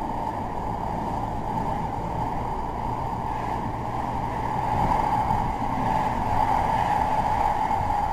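Manchester Metrolink tram running, heard from inside the passenger cabin: a steady rumble that grows louder about five seconds in.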